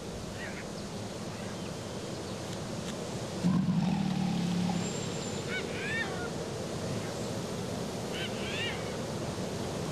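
A single low, drawn-out animal call lasting about a second, a third of the way in, over a steady outdoor background; a bird chirps in two short bursts later on.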